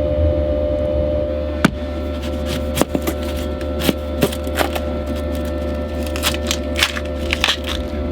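Steady buzzing hum of a diesel air heater running, with irregular sharp clicks and knocks of food preparation starting about one and a half seconds in.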